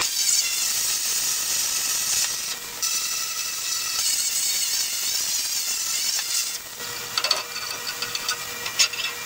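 Plasma cutter arc hissing steadily as it slices through 1-inch black iron pipe, with a short break a couple of seconds in. It stops about two-thirds of the way through, leaving a fainter hiss and a few light metallic clicks.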